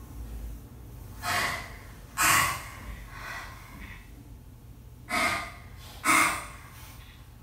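A woman's sharp, pained breathing: four loud gasps in two pairs, the breaths in each pair about a second apart, over a low steady hum.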